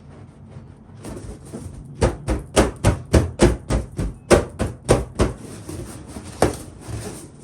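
Balloons popping in a quick run, about a dozen sharp pops in three seconds, then one more a second later, after some rubbing on the rubber.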